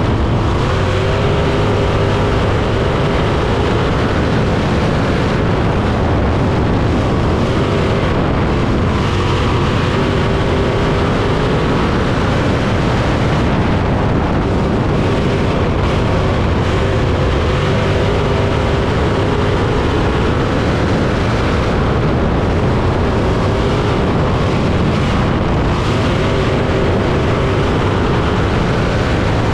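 305 winged sprint car's V8 engine running hard on a dirt oval, heard loud from inside the open cockpit, its pitch rising and falling every few seconds as it goes round the track.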